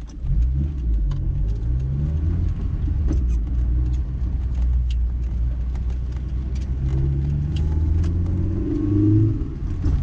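Honda S2000's inline-four engine and drivetrain heard from inside the cabin while driving, pulling with rising pitch near the start and again near the end. No clunk comes from the rear, the sign that the freshly replaced differential bushings have cured the knock.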